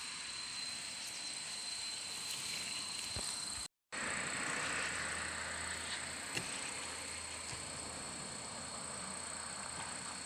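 Outdoor ambience: steady high-pitched insect chirring over a noisy hiss, broken by a brief dropout to silence about four seconds in. After the dropout a low hum sits under the hiss.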